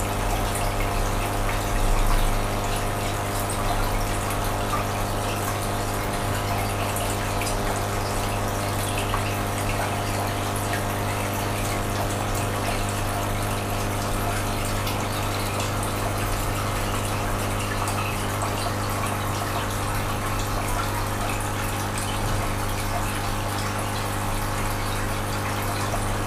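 Aquarium pump running steadily: a constant electrical hum with moving, trickling water.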